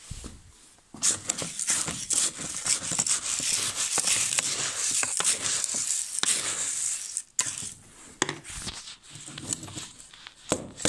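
Dry seed feed being scooped and handled in a plastic bowl, with plastic crinkling: a dense, steady crinkling and rattling that starts about a second in and drops to scattered clicks after about seven seconds.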